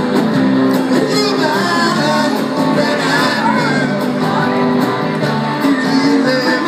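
Live rock band playing with guitars and drums and a steady beat, a singer's voice on top.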